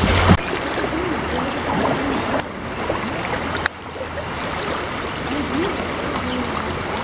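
Creek water rushing over shallow riffles, with faint distant voices. The level drops abruptly twice partway through.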